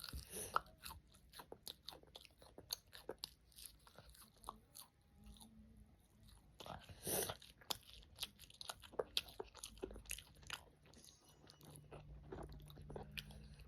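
Close-miked biting and chewing of crispy McDonald's fried food: a run of sharp, irregular crunches.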